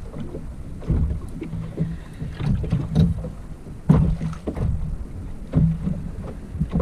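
Choppy sea slapping against a small boat's hull in irregular heavy thumps, over a low rumble of wind on the microphone.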